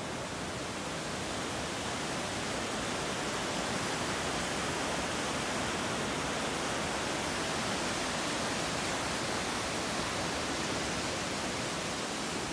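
Steady rushing of a fast whitewater mountain river in the gorge below.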